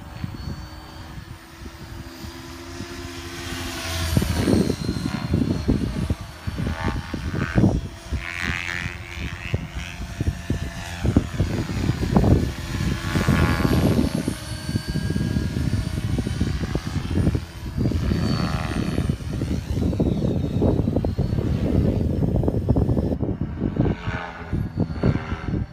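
Align T-Rex 550L Dominator electric RC helicopter flying overhead, its spinning rotor and motor heard as a whooshing sound with a high whine that rises and falls as it swoops past. It grows louder about four seconds in.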